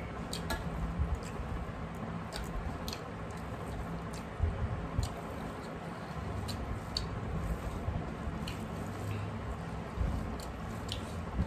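Eating by hand: fingers mixing rice and curry on steel plates, with wet squishing and chewing and scattered soft clicks at irregular times, over a steady low hum.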